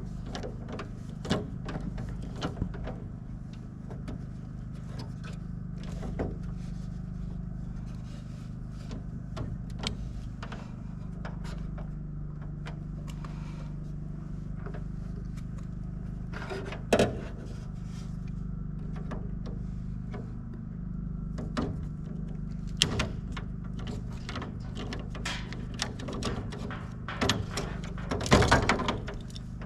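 Scattered small clicks and taps of hand tools and wire being handled during electrical outlet wiring, over a steady low hum, with a sharper knock partway through and a short clatter near the end.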